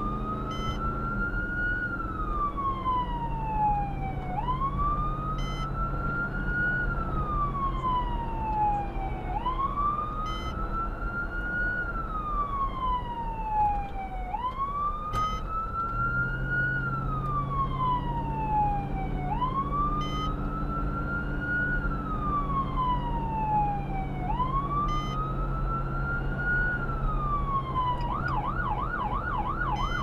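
Electronic emergency siren on a responding fire department vehicle, heard from inside the cab, sounding a slow wail that rises quickly and falls slowly about every five seconds. About 28 seconds in it switches to a fast yelp. The vehicle's engine and road noise run underneath.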